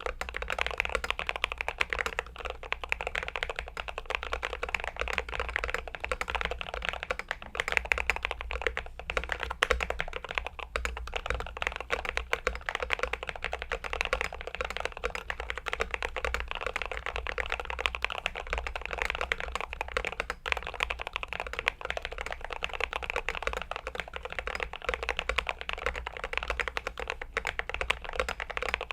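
Glorious GMMK Pro mechanical keyboard being typed on continuously: a dense, steady run of keystroke clacks.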